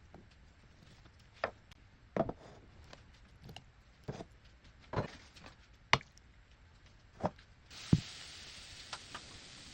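Knife chopping on a wooden cutting board in slow, separate strokes, about one a second. Near the end a thump is followed by a steady sizzle of food frying in a pan.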